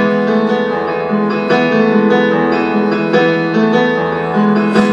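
Stage keyboard played with a piano sound: sustained piano chords, the notes changing about once a second.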